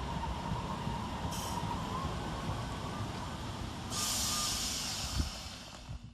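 Class 319 electric multiple unit running at the platform with a steady low rumble and a faint whine that rises slightly. A burst of air hiss comes about four seconds in, and the sound fades near the end.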